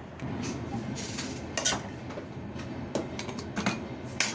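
Steel spoon clinking against a steel mixer-grinder jar and bowl as cooked gravy is spooned in, several sharp clinks over a steady low background.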